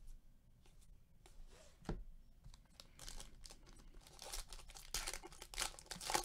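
Foil wrapper of a 2020 Topps Star Wars trading card hobby pack being crinkled and torn open, after a few faint clicks of cards being handled. The crackling starts about three seconds in and is loudest near the end.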